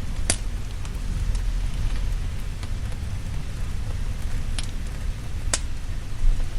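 Steady rain with a deep low rumble underneath, and a few sharp crackles from a wood fire: one about a third of a second in, two more in the second half.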